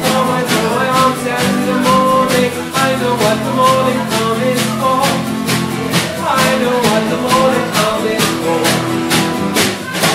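Acoustic country-style band playing: strummed acoustic guitar and a snare drum played with brushes keeping a steady beat, with a man singing over it.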